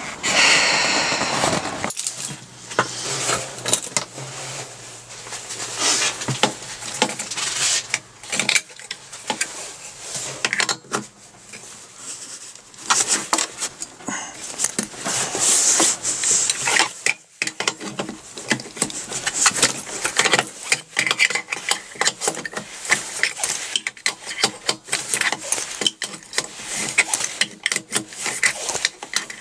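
Metal hand tools and fittings clinking, tapping and scraping in irregular clicks while working on an air compressor's pressure gauge and brass fittings. The first two seconds hold a louder, denser noise that cuts off abruptly.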